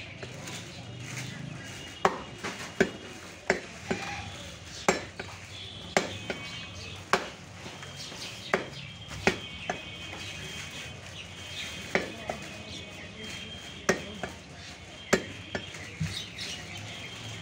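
Heavy meat cleaver chopping goat meat on a wooden tree-stump block: sharp chops about once a second, some in quick pairs.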